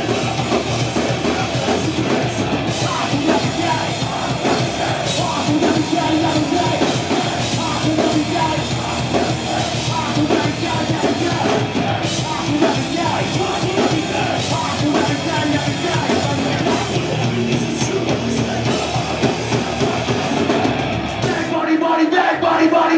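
Hardcore band playing live: distorted electric guitar and drums under a shouted, rapped vocal. The band stops about 21 seconds in, and the crowd starts yelling.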